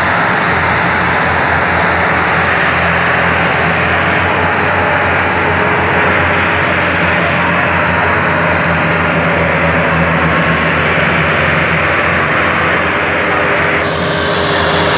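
Farm tractors' diesel engines running hard and steady under heavy load, hauling a sugarcane trolley of about 24,760 kg; the black exhaust smoke marks the strain.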